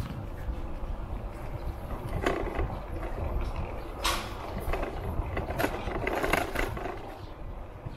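Steady low rumble of riding along a street, with wind on the microphone. Several sharp rattles and clatters come a second or two apart.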